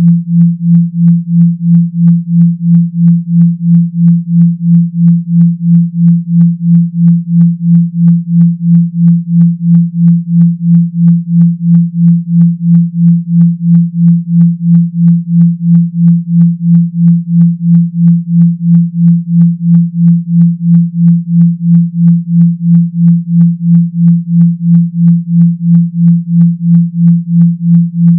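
Synthetic 170 Hz bass tone pulsing rapidly and evenly, about two and a half pulses a second, a buzzing vibration sound of the kind played to push water out of a phone speaker.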